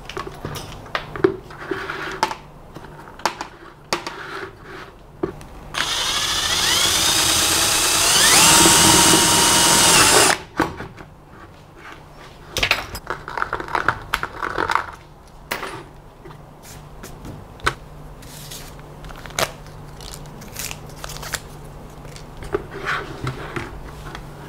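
Electric drill boring a hole in a plastic bucket: the motor spins up with a rising whine, steps up to a higher speed and runs for about four seconds before stopping. Before and after, scattered knocks and clicks from the bucket being handled.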